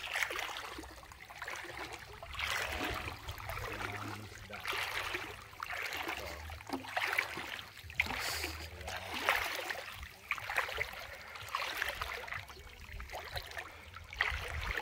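Shallow seawater sloshing and lapping in repeated surges every second or two, with a low rumble underneath.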